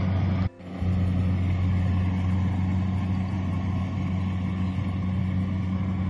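Kubota DC-70 combine harvester running steadily at work, a low, even engine hum with the noise of its machinery above it. The sound drops out briefly about half a second in.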